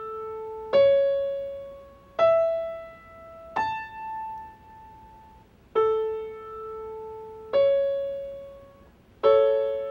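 Piano notes struck one at a time, each ringing and dying away. The mediant C# and dominant E climb to the high tonic A. Then the tonic A and the C# sound again, and near the end A and C# are struck together as a major third, the interval that makes the scale major.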